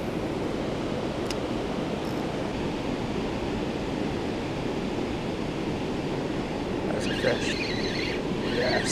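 Steady rush of flowing river water. Near the end, brief scratchy handling noises from the rod and reel.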